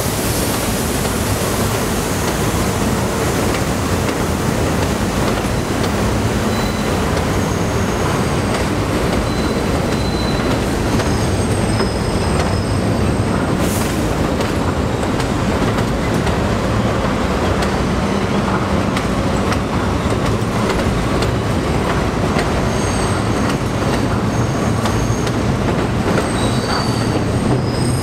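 Subway train of R32 and R42 cars rolling over an elevated steel structure: a steady rumble with wheels clacking over rail joints, brief high-pitched wheel squeals now and then, more of them near the end, and one sharp clank about halfway through.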